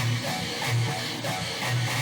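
Background music: guitar-led track with a steady beat, a low pulse about twice a second.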